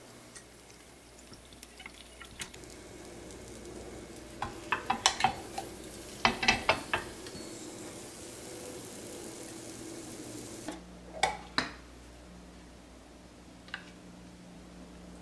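Kitchen utensils clinking against cookware, as when stirring or scooping food in a pan or bowl: three short runs of sharp clinks, about four and a half, six and a half and eleven seconds in, over a faint steady hum.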